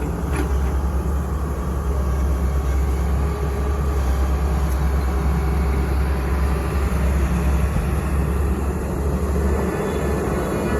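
JCB diesel engine running steadily under load while it digs and loads soil, a continuous deep, heavy machinery noise.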